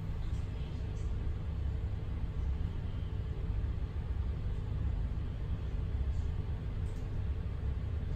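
Low, steady rumble inside an ICR passenger coach as the E186-hauled train pulls slowly out of the station, with a faint steady hum and a few light clicks.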